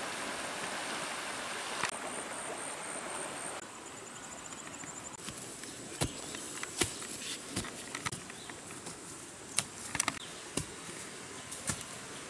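River water rushing over shallow rapids with insects buzzing, then, after a few seconds, a hand hoe chopping into soft earth in a series of irregular knocks while the insect buzz goes on.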